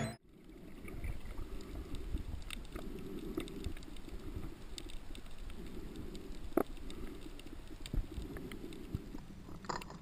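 Muffled underwater sound picked up by a camera under water: a low, uneven water rumble that swells and fades about once a second, with a few scattered sharp clicks.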